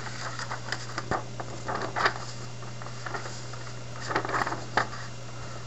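Paper being handled and lifted, making scattered short rustles and light clicks in a few clusters, over a steady low mains hum.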